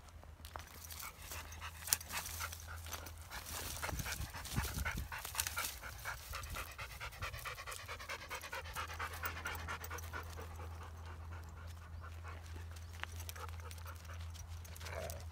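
Young Kangal dogs panting hard, a quick, even rhythm of breaths.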